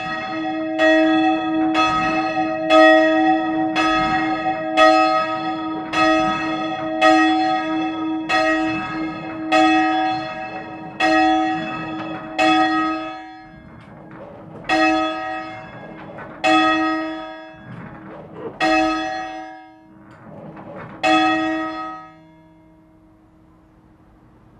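A single church bell being rung up by hand on its rope and wheel. The clapper strikes about once a second at first, then further apart as the bell swings higher, and the strikes stop a couple of seconds before the end.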